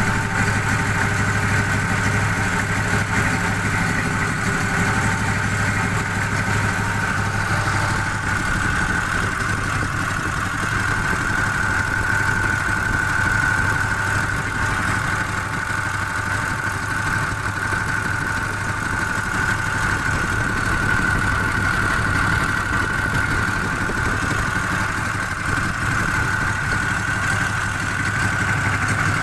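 Air-cooled V-twin engine of a homemade snowmobile running steadily at idle, turning the belt drive pulleys, with a steady whine over the low hum.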